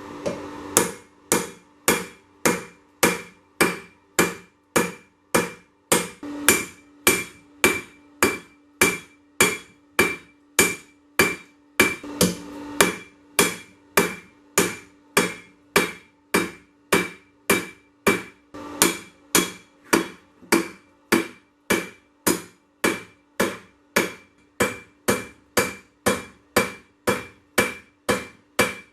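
Hammer blows on an anvil, drawing out 1085 carbon steel: an even rhythm of a little under two strikes a second, each blow leaving a ringing tone.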